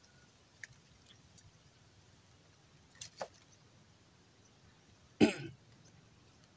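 A man clears his throat once, loudly, about five seconds in. Two faint clicks come a little earlier, around three seconds in.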